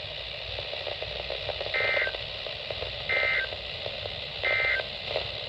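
Emergency Alert System end-of-message data signal: three short bursts of warbling digital tones about a second and a half apart, over steady radio hiss, marking the end of the severe thunderstorm warning.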